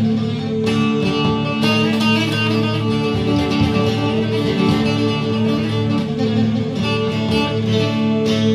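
Instrumental music led by a plucked string instrument playing quick notes and strums over steady held low notes.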